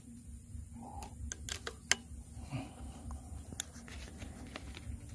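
Scattered light clicks and taps of an air rifle being handled as its pellet magazine is loaded and fitted, a few quick clicks close together about a second in, more spread out later.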